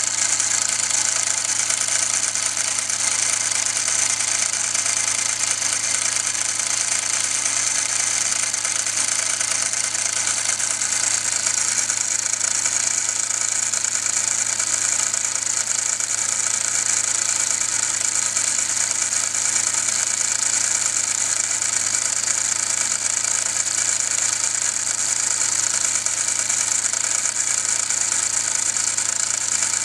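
Small brass live-steam toy engine with a horizontal boiler and a single oscillating cylinder running steadily: a constant high hiss of steam with a fast, even mechanical chatter.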